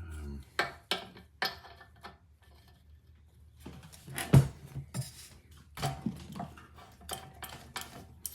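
Metal clicks and clinks of a spanner working the spark plug out of a British Seagull outboard's cylinder head, with a louder metallic knock about four seconds in.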